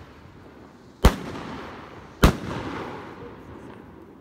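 Two sharp bangs about a second apart, each followed by a long echoing die-away: Funke Kometenschauer (comet shower) firework rockets bursting in the air.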